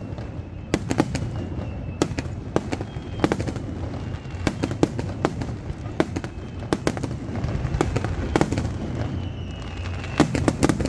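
Aerial fireworks shells bursting in a rapid, irregular barrage: sharp bangs come several times a second, some in quick clusters, over a steady low rumble.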